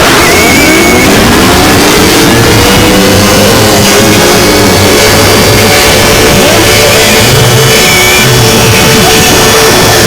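Mock emergency alert alarm, deliberately overdriven and clipped: several siren tones wind up in pitch over the first few seconds and then hold, buried in harsh distortion noise.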